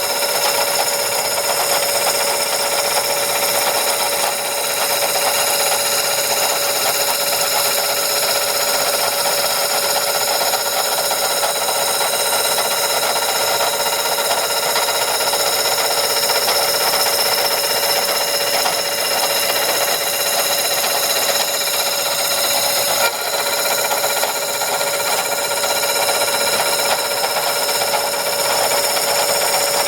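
A metal-working machine tool running and cutting, probably a lathe turning a model-engine cylinder: a steady multi-tone whine over a continuous rasping cutting noise, with a brief break about 23 seconds in.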